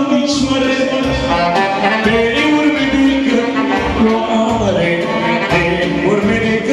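Live amplified Romanian folk dance music for a circle dance (hora): a man singing into a microphone over a band with a steady beat.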